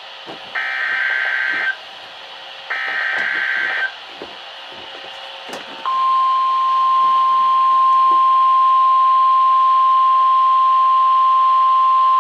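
NOAA Weather Radio EAS test broadcast: two bursts of SAME digital header data, each about a second long, then about six seconds in the steady 1050 Hz warning alarm tone starts and holds.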